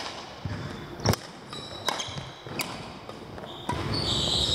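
Badminton rally: sharp racket-on-shuttlecock hits and footfalls about once a second, with sports shoes squeaking on the court floor, loudest near the end.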